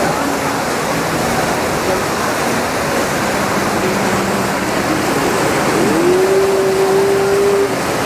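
Whitewater rapids rushing steadily through a rock-lined artificial river channel, a loud, even wash of churning water. About six seconds in, a single held note swoops up and holds for under two seconds above the water.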